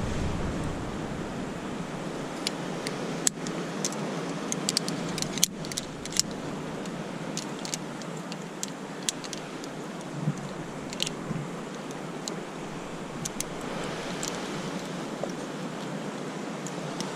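Metal climbing hardware clicking and clinking as a carabiner and a rope-clamp pulley are handled and clipped onto the rope: scattered sharp clicks, most of them in the first half. A steady rush of wind and surf runs underneath.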